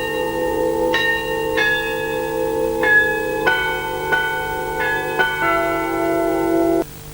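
A melody of bell-like chimes, a new ringing note about every half second to a second, each note sustaining over a steady low hum. It cuts off abruptly near the end, leaving a faint steady tone and hiss.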